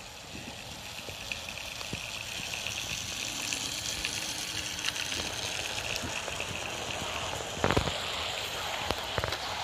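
Bachmann OO gauge GWR Manor model steam locomotive and its coaches running past on the track: a steady rushing rumble of wheels and motor that grows louder over the first few seconds, with light clicks of wheels over rail joints and a louder cluster of clicks about eight seconds in.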